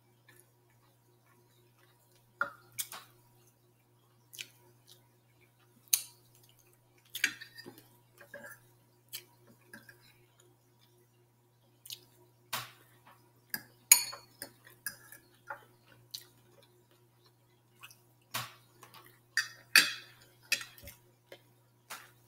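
Close-up eating sounds: irregular wet chewing and lip smacks from someone eating chicken and rice, with a few sharp clinks of a metal fork against a glass plate.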